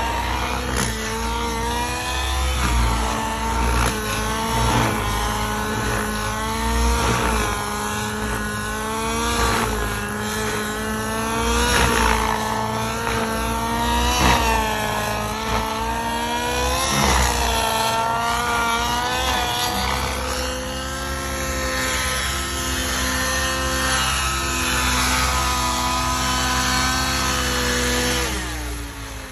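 Nitro engine and rotors of a 700-size RC helicopter in flight, a new engine being broken in. The pitch rises and falls every second or two as it manoeuvres, runs steadier later on, then drops in level and pitch at the end as the throttle comes back for landing.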